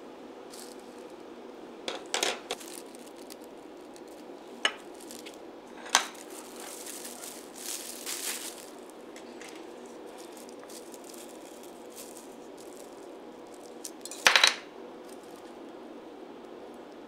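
A few sharp clinks and knocks of small kitchen tools set down on a wooden work table, the loudest near the end. In the middle, plastic wrap rustles as gloved hands work the cake dough. A faint steady hum runs underneath.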